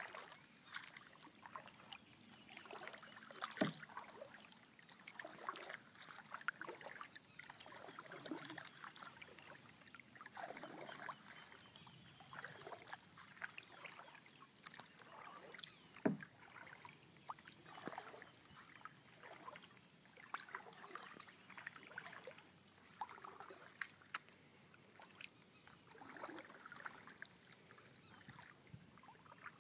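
Kayak paddles dipping and pulling through calm river water: soft swishes and drips every second or two. A couple of sharp knocks, about three and a half seconds in and again around sixteen seconds, are the loudest sounds.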